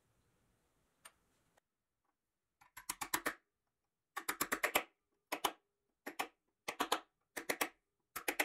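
A chisel worked in short strokes along a rusty pressed-steel Tonka truck part gives quick bursts of sharp metal clicks. There are about seven bursts, each a rapid run of several strokes.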